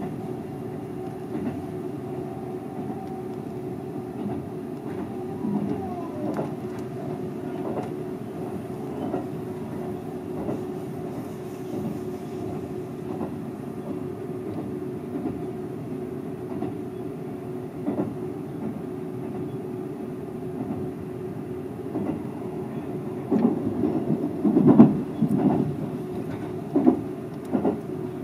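Seibu 001 series Laview electric train running along the line, heard from the front of the train: a steady rumbling hum with a held tone, scattered rail clicks, and a cluster of louder knocks near the end.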